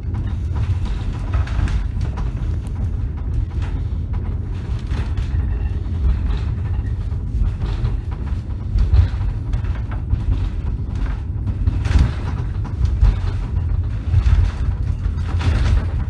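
Wood-paneled 1931 funicular car riding along its rails: a steady low rumble with scattered knocks from the wheels on the track.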